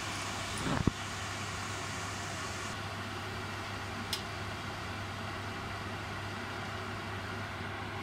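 Palak pakoras deep-frying in hot oil in a brass kadhai: a steady sizzle with a low hum underneath. A brief knock comes under a second in, and a faint click near the middle.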